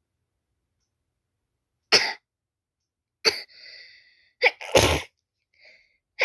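A person sneezing about three times in quick succession after a silent start, with a hissing breath after the second sneeze.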